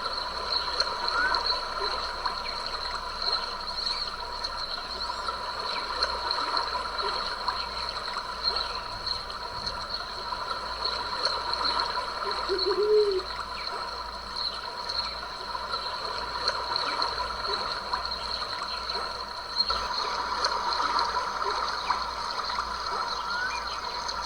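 Small stream trickling and gurgling without pause, over a steady, high-pitched chorus of critters. A few short rising chirps come near the start, and a brief lower call about halfway through.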